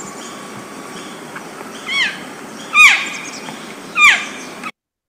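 Recording of a lost elk calf calling: three loud, short, high calls, each falling in pitch, about two, three and four seconds in, over a steady hiss. A faint thin whistle sounds far off in the background during the first second or so.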